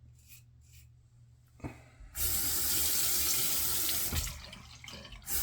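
Sink tap turned on about two seconds in, water running steadily into the basin, the stream dipping and breaking up briefly near the end.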